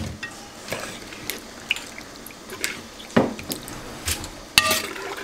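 Liquid dripping from sliced cucumbers and onions draining in a strainer into a stainless steel sink: scattered sharp drips and ticks over a faint trickle.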